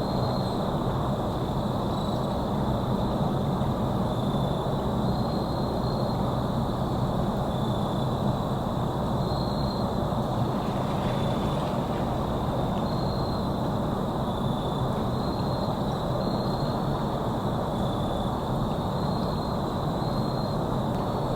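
Steady low rumbling noise, with a faint high chirp near 4 kHz recurring every second or two.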